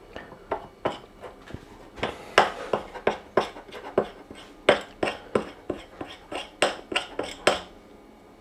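A teaspoon knocking and scraping against a dish while stirring a thick butter, honey and turmeric mixture. It makes a run of light clicks that quickens to about three or four a second and stops shortly before the end.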